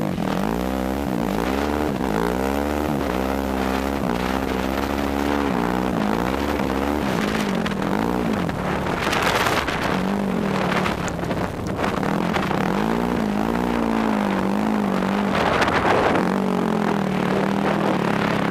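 Yamaha YFZ quad's engine being ridden, its pitch rising and falling again and again as the throttle is worked, with stretches held at a steady speed. Bursts of rushing noise come about halfway through and again near the end.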